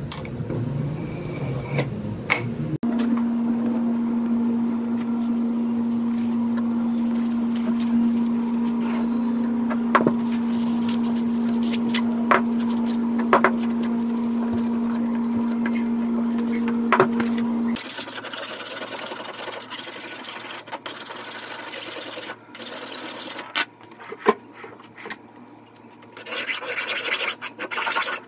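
A flat hand file rasping across the steel head of an old hatchet, in short strokes, most plainly near the end. Before that, a steady hum with a few sharp clicks runs for about fifteen seconds and stops abruptly.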